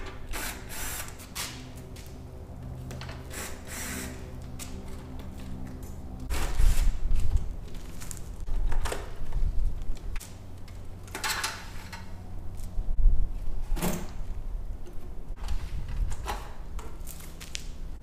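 Hand work in a Cessna 172's engine compartment as the scat tubing and its clamps are taken off: scattered clicks, rattles and rustles of tools, clamps and hose. Under it is a steady low hum for the first few seconds, then a low rumble.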